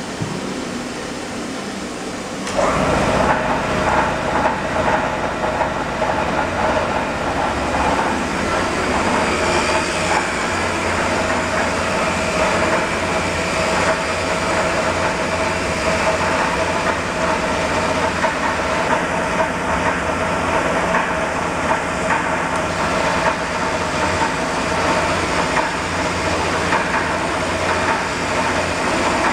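CNC panel router with a multi-spindle boring head running. About two and a half seconds in, a loud, steady machine noise with a steady whine starts suddenly and carries on, with an uneven rattle through it.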